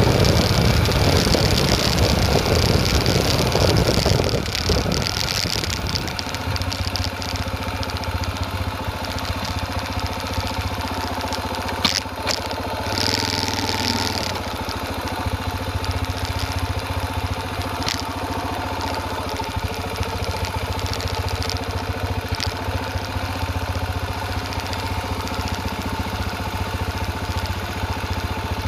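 Motorcycle engine running while the bike rides a dirt trail, with heavy road and wind noise at the handlebars. About five seconds in it drops back to a steady idle with the bike stopped, with a couple of faint clicks.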